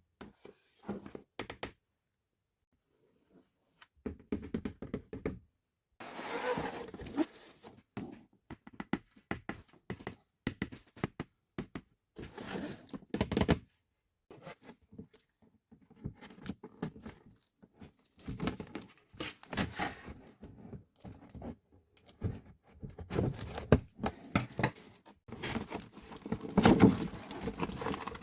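Close-up handling of plastic toy parts and packaging: irregular clicks, taps and short crinkling rustles, broken by brief silences.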